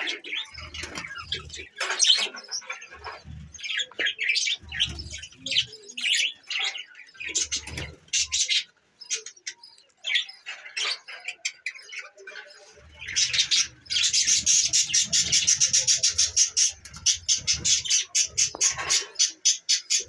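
A flock of budgerigars chirping and chattering in an aviary. About two-thirds through, the chatter grows louder and becomes a dense, rapid run of high notes.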